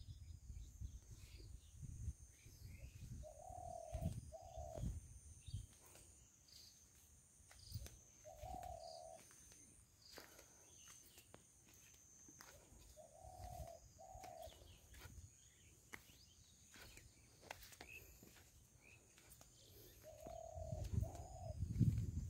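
A dove cooing, four short phrases of one or two low notes spaced several seconds apart, over a low rumble.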